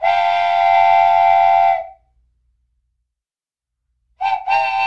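Darjeeling Himalayan Railway B-class steam locomotive's whistle: one long, steady blast of almost two seconds, then, after a silent gap, two short toots near the end.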